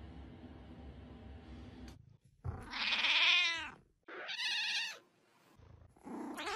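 A domestic cat meowing three times. A long meow that rises and falls comes about two and a half seconds in, then a shorter, higher one, and a third begins near the end. Before the first meow there is only a faint low background noise.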